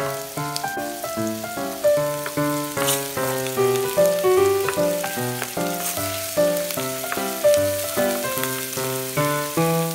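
Chopped onions, leeks and minced garlic sizzling in hot oil in a frying pan as they are stirred. Background music of short, quick notes plays over it and is the loudest sound.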